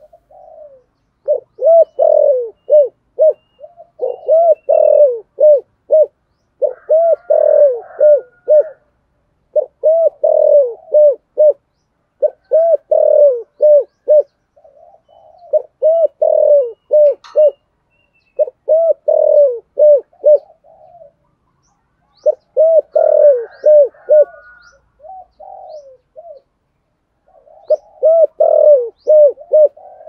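Spotted dove cooing in the fast 'thúc gù' style: about nine runs of quick, low, arching coo notes, each run lasting a second or two with short pauses between. It is the rousing coo of a decoy dove used to stir up other doves.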